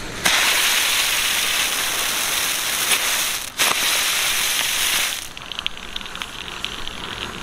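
Mercury Silver Giant Wheel ground spinner (chakkar) firing: a loud, steady hiss of burning composition as it spins and sprays sparks. The hiss starts suddenly about a quarter second in, drops out for a moment about three and a half seconds in, and stops about five seconds in. Faint crackling ticks follow.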